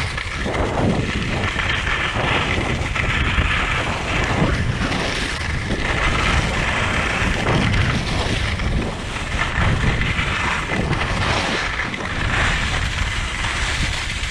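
Skis scraping over packed snow through a run of turns, each turn a swell of hiss and rumble about every second or so, mixed with wind rushing over the microphone.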